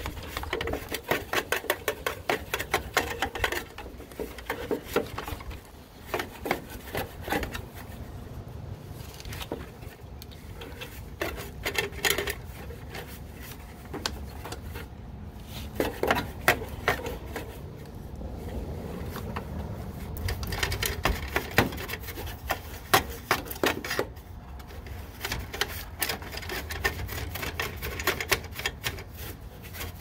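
Hand tools and metal parts of an air-conditioning unit being worked on: irregular clicks, knocks and scrapes, over a low steady hum.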